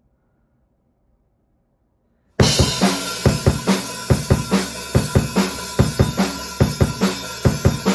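Near silence, then about two and a half seconds in an acoustic drum kit starts playing on its own, without backing music: a steady groove of kick and snare hits, three to four a second, over ringing cymbals.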